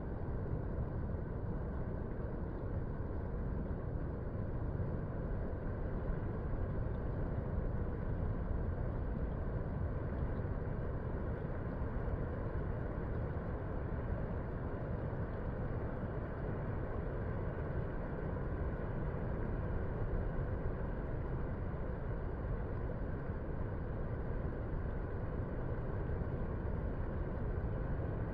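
Steady low rumble of distant surf breaking on the beach at low tide.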